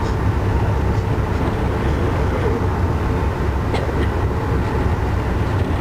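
Steady low running noise of a moving Amtrak Northeast Regional passenger train heard from inside the coach, with a faint click about four seconds in.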